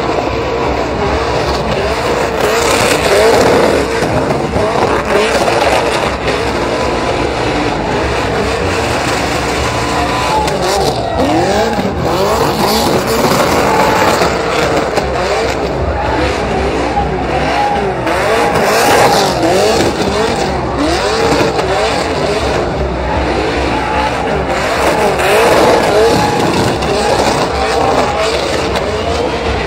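Pickup truck engines revving hard up and down again and again in a burnout, over the hiss and squeal of spinning tyres.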